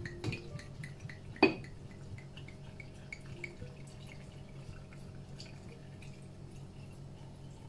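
Red wine poured from a bottle into a glass jar of sliced fruit, glugging and trickling in a run of small even ticks that fade as the pour settles. One sharp knock about a second and a half in.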